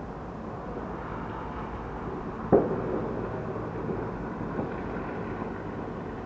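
Distant fireworks going off: one sharp bang about two and a half seconds in that rings out briefly, and a fainter pop a couple of seconds later, over steady low background noise.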